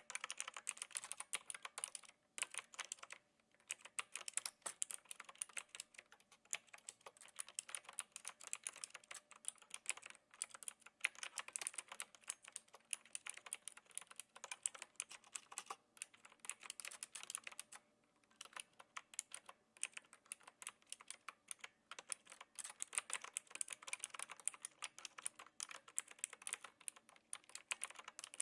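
Typing on a typewriter-style mechanical keyboard with clicky blue switches: quick runs of sharp keystroke clicks, with short pauses between bursts.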